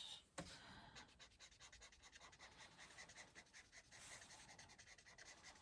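Faint scratching of an alcohol marker's tip being worked over paper in quick, short strokes, several a second. The marker is drying up and is being pressed to squeeze out its last ink.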